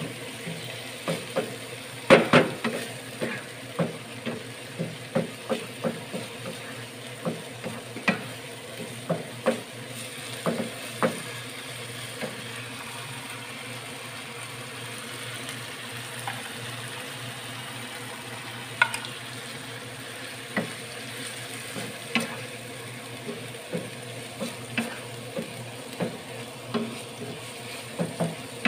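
Chopped chilies and seasonings sizzling in a frying pan while a wooden spatula stirs them, knocking and scraping against the pan; the loudest knock comes about two seconds in. The stirring pauses for several seconds midway, leaving only the sizzle, then starts again.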